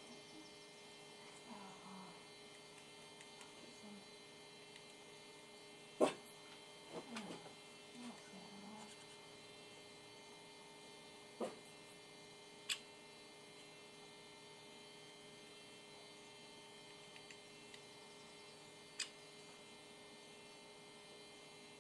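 A steady electrical hum with a few scattered sharp taps; the loudest tap comes about six seconds in.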